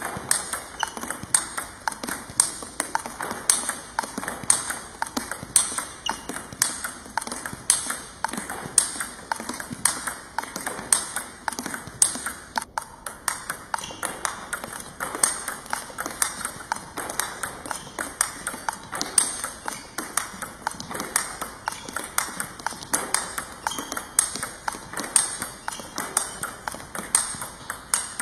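Table tennis rally: the ball struck back and forth by two bats and bouncing on the table in a continuous topspin exchange. Each contact is a sharp click, several a second, in a steady unbroken rhythm.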